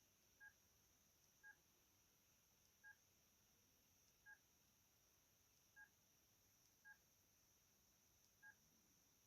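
Sony Ericsson T610 key tones: seven short, faint beeps at irregular gaps of about one to one and a half seconds, one per key press as the phone steps through its wallpaper pictures.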